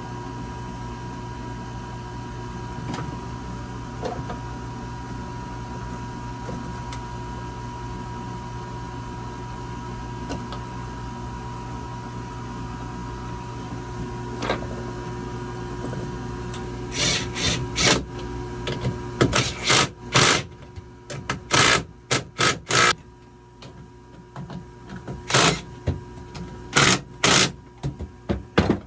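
A steady machine hum, then over the last dozen seconds repeated short, harsh bursts from a tool driving lag bolts down into the autopilot mount.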